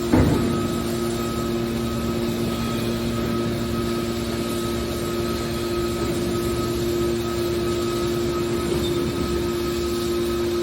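Hydraulic scrap-metal baler running with a steady machine hum, and a sharp clank just after the start.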